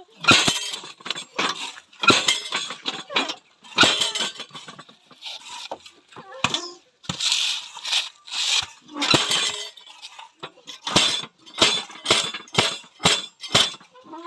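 Repeated gritty scraping and metallic clinking, about one stroke every second or so: metal tools working a sand-cement mix for block moulding.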